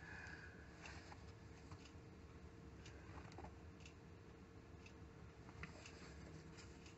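Near silence: faint scattered ticks and light rustles of hands handling tying thread and bucktail hair at a vise, over a faint steady hum.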